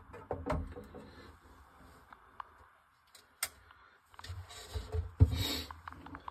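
Handling noise from a copper bus bar and its hanging bars being moved on a plastic tub: scattered light clicks and rubbing, with a sharp click partway through and a louder knock about five seconds in.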